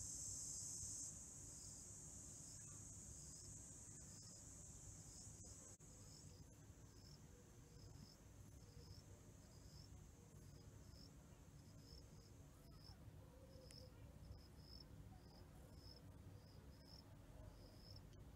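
Faint cricket chirping: short high chirps repeating evenly, a little more than one a second. A high steady hiss under the chirps fades away about two-thirds of the way through.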